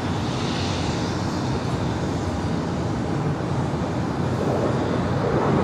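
Business jet's engines heard from a distance during its takeoff roll, a steady rumble with a hiss above it.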